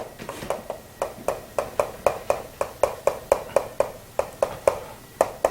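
Rapid, even tapping of writing strokes on a board, about four short ticks a second.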